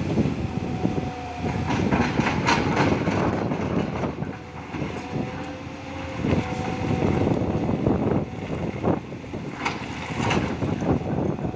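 Tata Hitachi 200 excavator's diesel engine and hydraulics running under load, with a faint steady whine and several sharp knocks and scrapes, the loudest about two and a half seconds in and again near the end.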